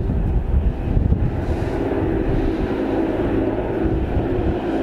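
Steady low rumble of wind on the microphone, with the distant running of a passenger train on the valley line below.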